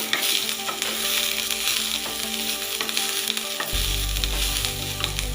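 Chopped onion, capsicum and garlic sizzling steadily in hot oil in a pan as they are stirred. A low hum comes in about two-thirds of the way through.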